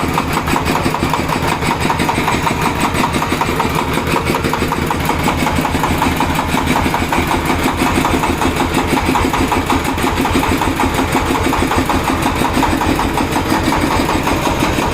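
Engine-driven air compressor, a 24 HP Fumitsu engine turning a 15 HP high-pressure compressor pump, running steadily with a fast, even pulsing beat.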